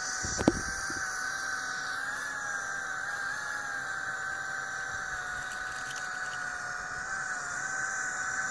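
Electric drive motors of a 3D-printed RC excavator, a scale model of a Volvo EC550EL, whining steadily as the machine moves, the pitch wavering slightly with load. A single sharp knock sounds about half a second in.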